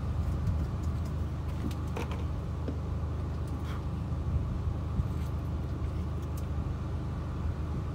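A motor running steadily with a low hum, with a few sharp clicks and knocks over it.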